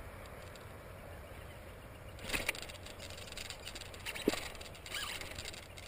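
Irregular crackling and rustling with a sharp click about four seconds in, over a low steady hum: handling noise from an angler's rod, reel and gear during a fight with a hooked fish.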